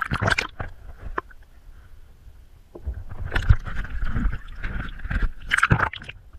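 Sea water sloshing and splashing against a waterproof action-camera housing held at the waterline, in irregular bursts, cutting off suddenly near the end as the camera goes under the surface.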